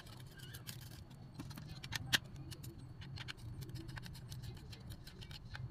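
Light clicks and ticks of a small screwdriver and handled plastic parts as screws are turned in a toy RC bulldozer's plastic gearbox housing, the sharpest click about two seconds in, over a low steady hum.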